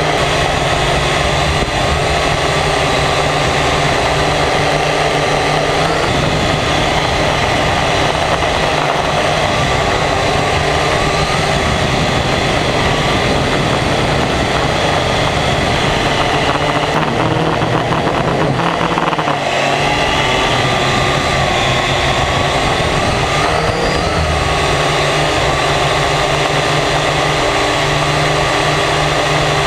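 Multirotor drone's electric motors and propellers whining steadily, the pitch wavering up and down as the throttle changes in flight.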